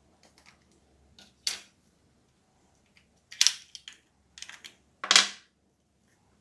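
Plastic parts of a TV remote control being handled and worked on: a scatter of short, sharp clicks and scrapes, three louder cracks about a second and a half, three and a half, and five seconds in.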